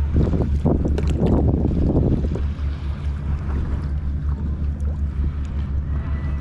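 A boat engine running with a steady low hum. Over the first two and a half seconds there is a rush of noise on top.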